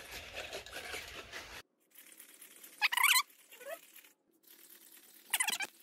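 Sony Aibo ERS-1000 robot dog making its synthesized dog sounds: two short, high-pitched yips, about three seconds in and again near the end.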